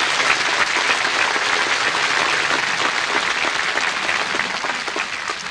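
Large crowd applauding, a dense, steady clapping that eases off near the end.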